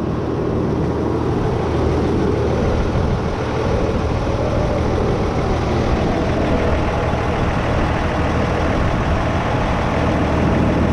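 Ford 9600 tractor's six-cylinder diesel engine running steadily, heard close up from on the tractor.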